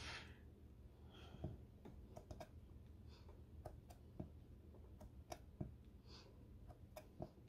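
Faint, scattered light taps and clicks of fingers handling and pressing a small polymer clay cane against a hard work board, over near-silent room tone.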